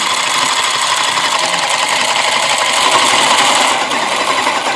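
Battery-powered toy stand mixer running, a steady rapid rattling whir as its beater spins candy rolls around the plastic bowl.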